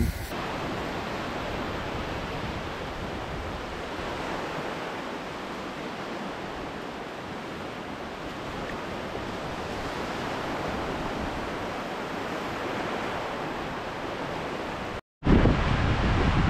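Steady wash of ocean surf along the beach. After a brief cut near the end, the surf comes in louder, with wind rumbling on the microphone.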